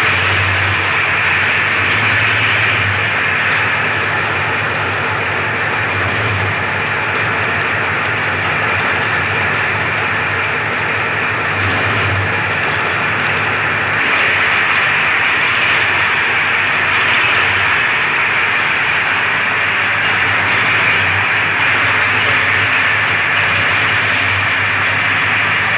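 Powertrac 439 diesel tractor engine running steadily while it drives a welding machine, with a constant low hum and a steady hiss over it. It gets slightly louder about halfway through.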